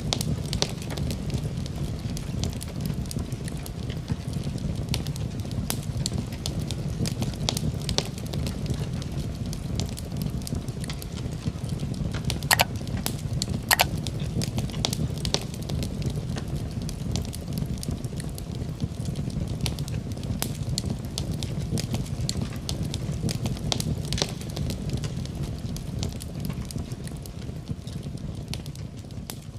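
Wood fire crackling in a fireplace: a steady low rumble of flames with frequent small pops, two louder snaps a little past the middle, easing down slightly near the end.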